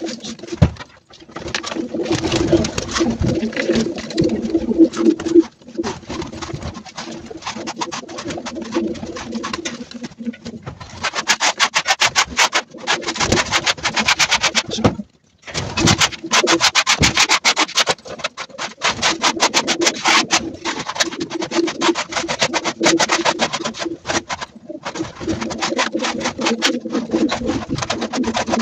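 Domestic pigeons cooing, with the rapid scratchy scraping of a broom sweeping dried droppings and grit across a concrete floor. The scraping is loudest through the middle stretch.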